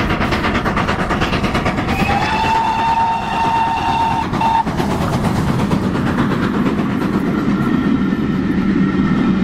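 A steam train running with a fast, even rhythmic clatter, and a whistle blown once for about three seconds, starting about two seconds in.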